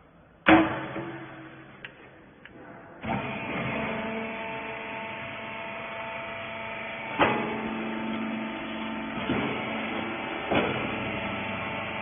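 Hydraulic rag baler: a loud clank about half a second in, then about three seconds in its electric motor and hydraulic pump start and run with a steady hum. A few knocks come during the running.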